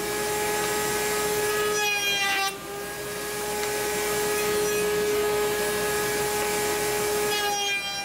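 Router in a router table running with a steady high whine while a half-inch round-over bit cuts walnut stock fed along the fence, making a dowel. The cutting noise drops about two and a half seconds in as the stock is repositioned, then builds again.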